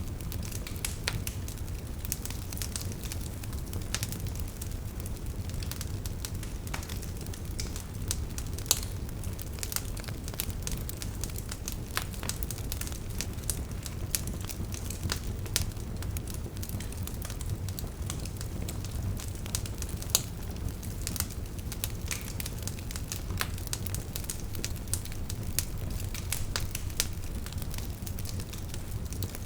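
Wood fire burning in a fireplace: logs crackling and popping with many irregular sharp snaps over a steady low rumble of the flames.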